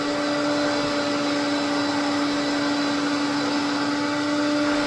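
1960 Sears Lady Kenmore Kenkart vacuum cleaner running with straight suction through its hose and wands: a steady motor whine over the rush of air.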